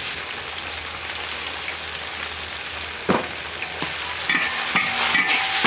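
Pork and wood ear in sauce sizzling steadily in a wok just after dark soy sauce goes in. A single knock about three seconds in, then a metal spatula scraping and stirring against the wok in repeated strokes.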